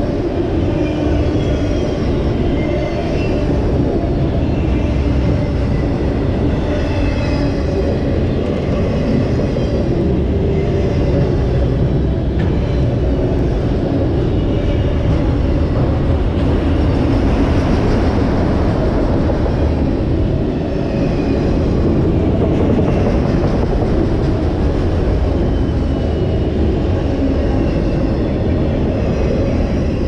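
Freight train of autorack cars rolling past at speed: a steady, loud rumble of wheels on rail, with short high squeals now and then.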